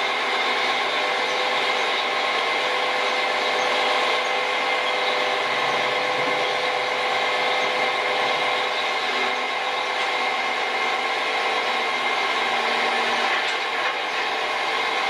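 Heavy mobile crane's engine running steadily during a lift, a constant noise with a steady whine held under it.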